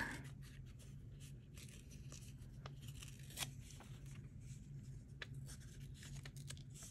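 Faint rustling and a few small scattered clicks of paper being handled and trimmed, over a steady low hum.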